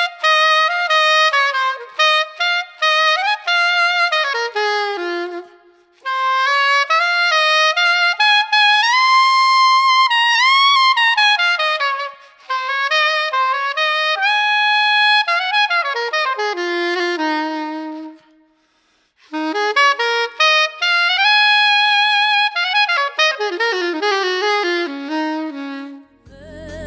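Yanagisawa SC-992 bronze curved soprano saxophone playing an unaccompanied melody alone, in legato phrases separated by short breathing gaps, with a little reverb.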